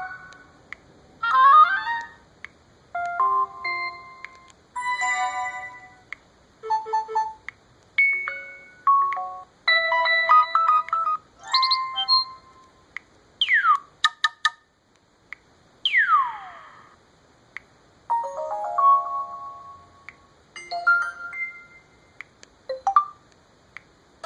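LG Optimus L9 phone's built-in ringtones and alert tones, played one after another. There are more than a dozen short electronic jingles and chimes, each a second or so long, with brief gaps between them; a few are quick sweeping glides in pitch.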